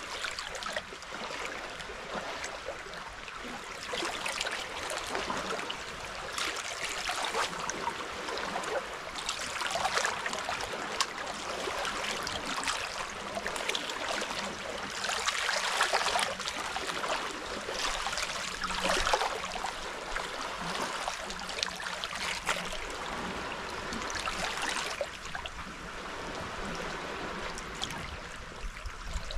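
Small waves lapping and sloshing against the shoreline rocks, swelling and easing every few seconds.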